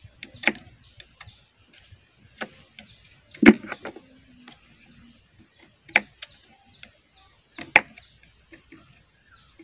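Knife blade scraping the metal end caps of battery cells, roughening the terminals so solder will stick; a few sharp scratchy clicks a second or two apart, the loudest about three and a half seconds in.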